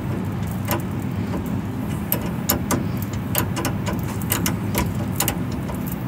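Ratcheting box wrench clicking in short, irregular runs as it turns the inlet fitting on a brass thermostatic expansion valve, over a steady low hum.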